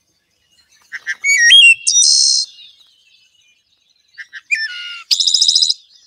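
Recording of a wood thrush singing two song phrases about three seconds apart. Each phrase is a few short soft notes, then clear whistled notes stepping up and down in pitch, ending in a high buzzy trill.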